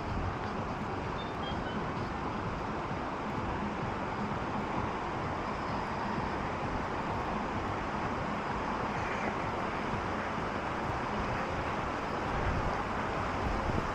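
Steady outdoor background noise, a low rumbling hiss with no distinct events, growing slightly louder near the end.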